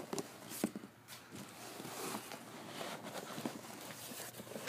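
Foam packing peanuts tumbling out of a cardboard box onto carpet: soft rustling and light pattering, with a few sharper clicks and knocks of the box being handled in the first second.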